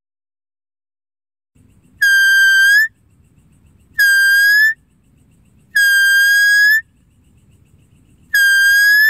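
Deer-lure call: four long, steady high whistles, each just under a second, ending with a slight upward lift. The first comes about two seconds in and the rest follow every couple of seconds.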